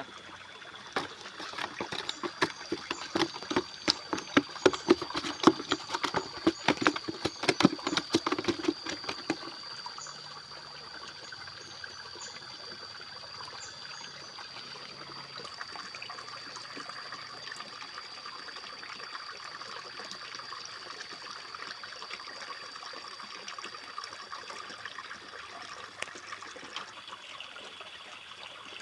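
Water trickling steadily into a fish pond. For roughly the first nine seconds it is overlaid by many irregular splashes and knocks, then only the steady trickle remains, with a thin high steady tone above it.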